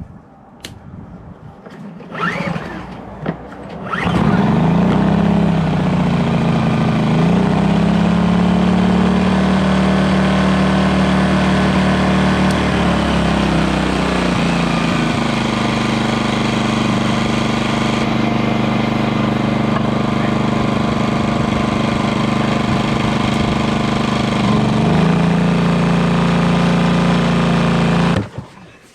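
Portable generator's small engine running steadily under a light load, coming in suddenly about four seconds in after a few knocks. Its pitch rises and settles at first, dips and recovers twice, and stops suddenly near the end.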